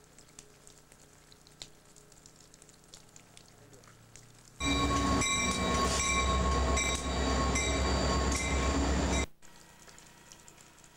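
CSX military freight train heard up close, a loud rumble of passing rail cars with several steady high tones over it. It starts abruptly about halfway through and cuts off just as suddenly some four and a half seconds later, after faint background before it.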